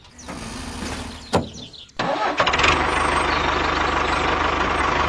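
A small engine running steadily, coming in abruptly about two seconds in. Before it there is a quieter stretch with one sharp knock.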